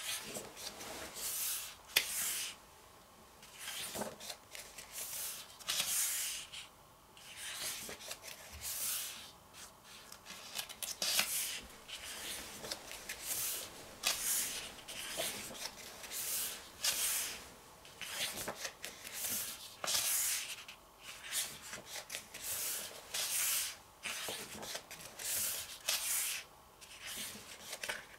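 Pages of a paperback photobook being turned one after another and smoothed flat by hand: repeated paper swishes, one every second or two, with a few sharp snaps of the paper.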